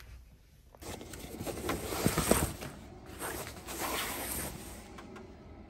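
Rustling and handling noises with a few light clicks, swelling about a second in and fading out near the end.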